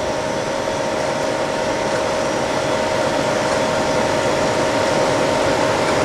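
53A80N gear hobbing machine running, a steady mechanical hum with a constant whine.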